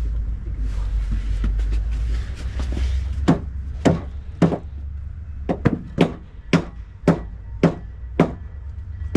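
Hammer driving nails into deck framing: a steady run of sharp strikes, about two a second, starting about three seconds in. A low rumble sits under the first few seconds.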